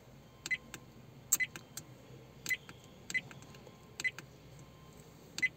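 REDTIGER F7N dash cam's touchscreen giving a short high beep with each finger tap as its menus are stepped through, six taps about a second apart.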